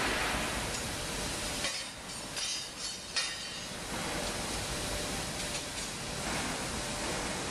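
Forge shop machinery noise around a 5-inch upsetter forging hot steel: a steady loud roar, broken about two seconds in by a brief metallic clatter and one sharp bang near three seconds.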